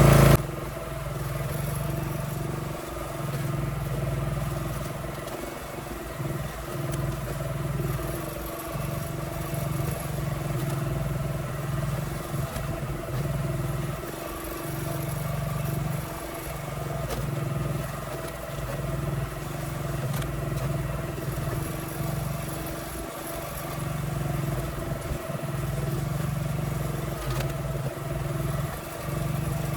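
Small gasoline engine running steadily, its low note swelling and easing every second or two.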